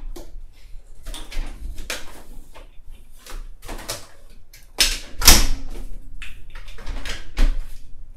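Plastic and metal parts of a Graco Blossom high chair knocking and clicking as the seat base is pushed onto the leg frame, with the loudest snap about five seconds in: the spring-loaded locking buttons clicking into their holes.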